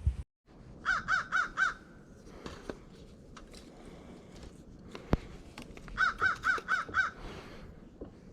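A bird calling in two quick runs of repeated calls, about four a second in and five more near the end, with a sharp click between them.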